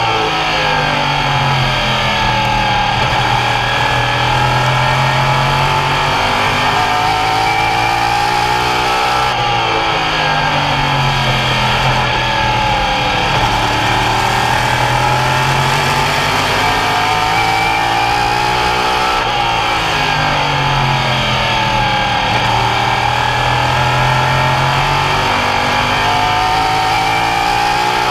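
Open Modified race cars' V8 engines at racing speed. The engine note drops as the cars lift off and then climbs again under acceleration, in a cycle that repeats about every ten seconds.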